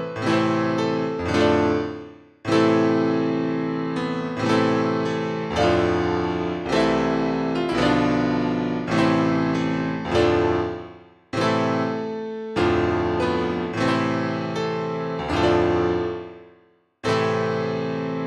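Solo piano music: full chords struck one after another, about one a second, each left to ring and fade. It breaks off for a moment three times.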